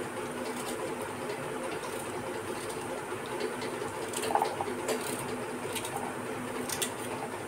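Chopped onions and mustard seeds frying gently in oil in a kadhai, a steady sizzle and hum, with a few sharp clicks of a knife cutting through a hard carrot on a plate, the clearest about four and a half and almost seven seconds in.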